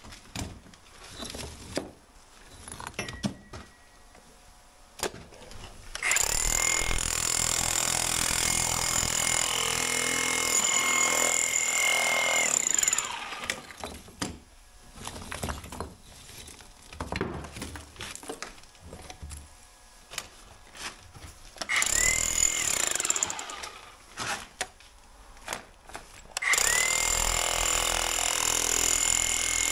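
Milwaukee electric demolition hammer breaking out chimney-breast brickwork in three bursts: a long run of about seven seconds, a short one, then another near the end. Each opens with the motor's rising whine. Between the bursts there are scattered, quieter knocks.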